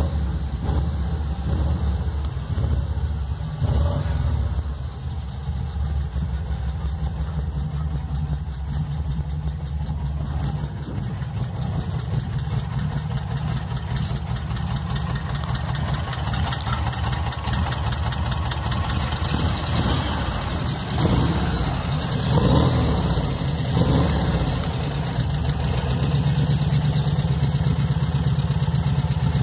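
Air-cooled flat-four engine of a VW Kombi idling steadily, just started after the van had sat unused for a while with its battery charged. A few brief rises in level come about two-thirds of the way through.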